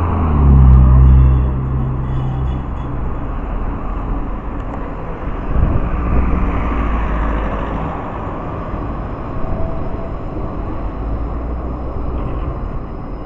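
A G:link Bombardier Flexity 2 light-rail tram rolling past close by on a street track, amid steady road traffic noise. A road vehicle's engine passes loudly in the first two seconds.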